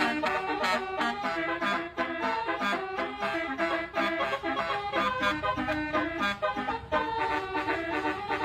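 Telolet basuri multi-note air horn playing a quick, accordion-like melody of short notes, over a low steady hum.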